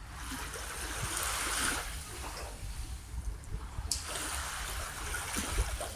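Small waves lapping and splashing, swelling twice, over a low rumble of wind on the microphone, with one sharp click about four seconds in.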